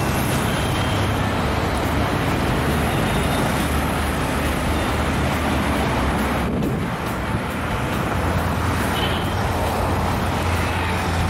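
M11-class diesel-electric locomotive running as it approaches, a steady low engine drone that grows stronger over the last few seconds.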